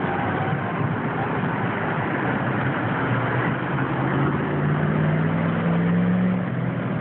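Road traffic with vehicle engines running, including the heavy diesel of a car-carrier tow truck; a low engine note rises and grows louder from about four seconds in, then fades near the end.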